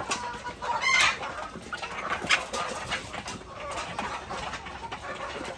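Domestic chickens clucking, several birds calling at once, with one louder call about a second in.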